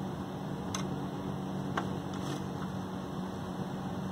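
Steady hum and rush of an electric fan, with a few faint ticks of a screwdriver on the screws of a stereo receiver's metal bottom cover.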